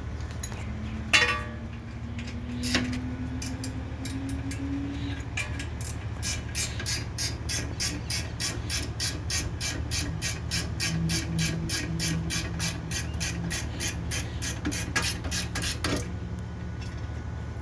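Honda City making an even, rapid clicking of about three clicks a second for about ten seconds, over a steady low hum: the abnormal noise taken for a failing bearing. A tone rises slowly over the first few seconds, with two sharp knocks near the start.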